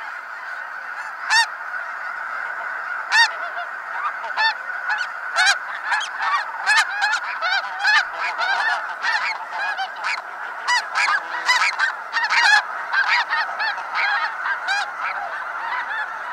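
A flock of snow geese honking: a constant din of many birds calling, with single honks standing out above it, a few at first and coming thick and fast from about six seconds in.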